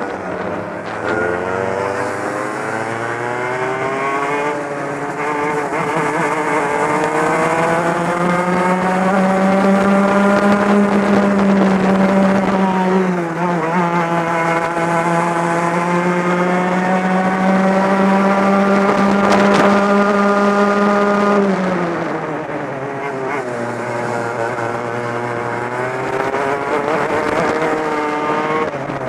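Two-stroke Club100 racing kart engine running hard at speed, heard onboard: its pitch climbs, holds high for a long stretch with one brief dip, drops sharply about three quarters of the way through as it slows, then climbs again near the end.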